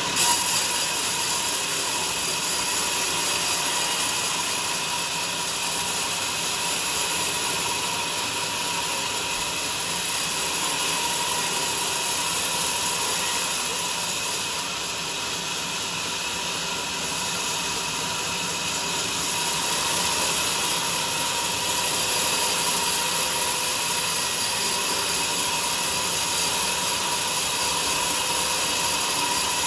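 Sawmill saw running steadily through a teak log, with a brief sharp knock just after the start.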